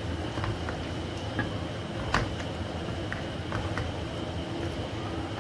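Wooden spatula stirring chicken pieces in thick korma gravy in a nonstick pan: soft scraping with scattered light clicks against the pan, one sharper knock about two seconds in, over a steady low hum.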